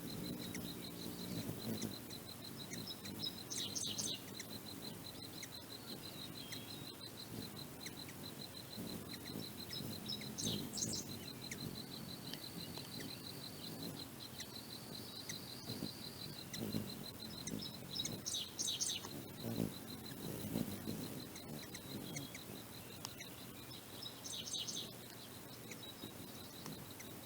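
Ruby-throated hummingbirds at a feeder: short bursts of high chipping about four times, with a low hum of wings now and then, over a steady rapid insect trill.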